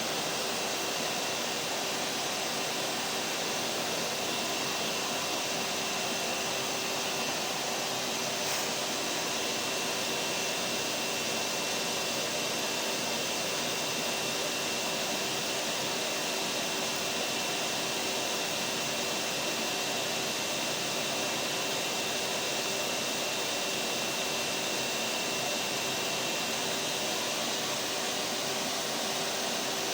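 Vacuum cleaner motor running steadily: an even rushing noise with a steady hum and a thin high whine.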